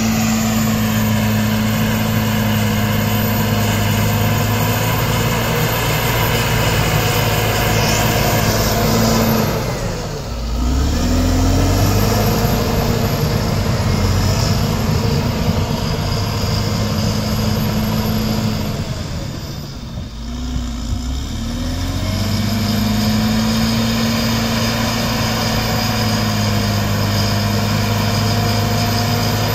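Caterpillar D7R crawler dozer's diesel engine running steadily while it pushes earth. The engine note drops and picks back up twice, about ten and twenty seconds in.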